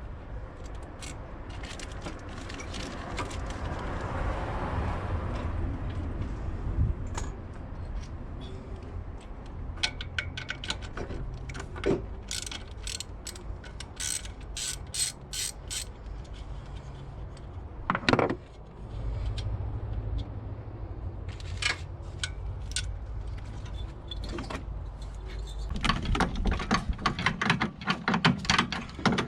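Metal clicks and clanks of hand work on a car's engine bay, including runs of quick, evenly spaced clicks and a louder knock about two-thirds of the way through, over a steady low hum.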